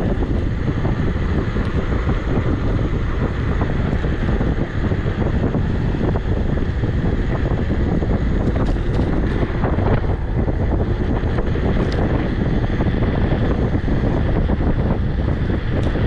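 Steady, loud wind noise buffeting the microphone of a handlebar-mounted camera on an Emove Cruiser electric scooter being ridden, with a constant low rumble underneath.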